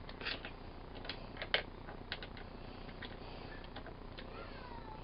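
Scattered light clicks and taps, quiet and irregular, a few a second, with a faint falling tone about four seconds in.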